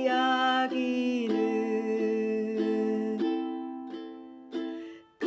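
Ukulele strummed in three-beat waltz time with a voice singing along, holding a long note on '이야기는' that fades out after about three seconds while the strings ring down. A last strum sounds near the end.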